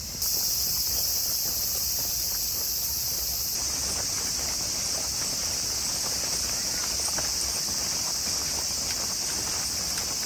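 A steady, high insect chorus, continuous shrilling with faint scattered ticks beneath it.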